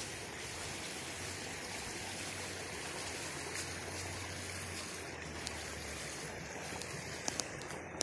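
Shallow mountain river flowing over stones, a steady rush of water, with a few light clicks near the end.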